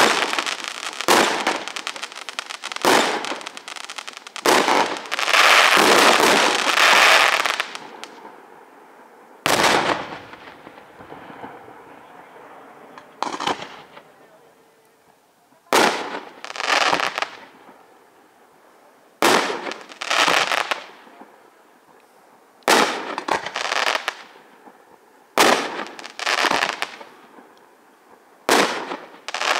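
Aerial firework shells bursting. For the first eight seconds a dense barrage of bangs and crackle, then separate loud bangs every one to three seconds, several followed by a short crackle.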